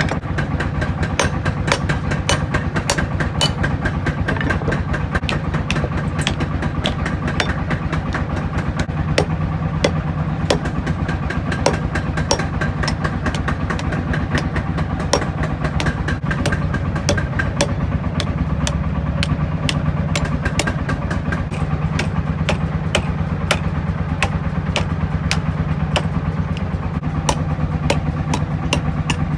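Hand hammer striking a steel sickle blade on an anvil, many sharp blows at an uneven pace, over a steady motor drone.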